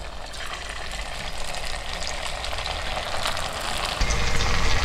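Hot oil sizzling in an aluminium kadai as potato and rice-flour dough pieces are dropped in to deep-fry, the sizzle building gradually louder. About four seconds in, a low rumble joins and the sizzle gets stronger.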